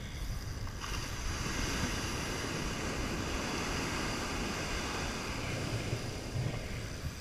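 Ocean surf washing up the beach, with wind rumbling on the microphone; the wash swells about a second in and eases off near the end.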